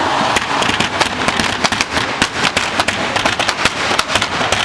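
Plastic wheelie bin lids drummed on, a fast, uneven run of sharp hollow knocks improvising a beat.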